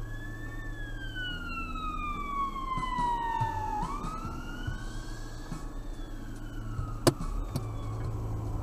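Ambulance siren wailing in slow sweeps, falling over about three seconds and then rising again, over a steady low hum. A single sharp click about seven seconds in.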